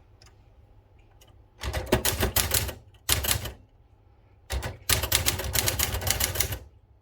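1970 Citizen X3 manual typewriter being typed on: a quick run of keystrokes starting about a second and a half in, a brief cluster of strokes, then a longer fast run, each a sharp clack of a typebar striking the platen.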